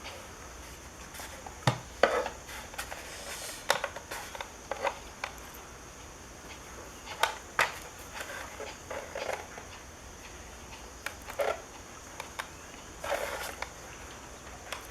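Hand work on a car's power side-mirror assembly: irregular small clicks, taps and short scrapes of plastic parts and tools, the sharpest knock about two seconds in.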